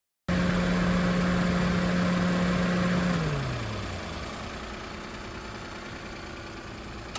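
A machine running with a steady whining hum that stops about three seconds in and spins down, its pitch falling as it fades.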